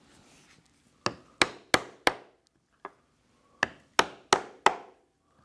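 Mallet striking a four-prong stitching chisel, punching stitching holes through tooled leather and hair-on cowhide. Sharp knocks in two rapid groups of four, with a light tap between the groups.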